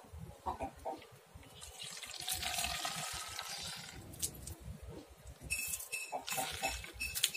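Water being poured into a container, a splashing, gurgling run in the middle of the clip, followed near the end by a series of short clicks.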